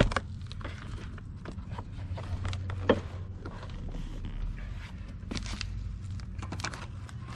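A cardboard shipping box being opened and handled: an irregular run of scrapes, rustles and knocks, with a sharp knock about three seconds in, over a steady low hum.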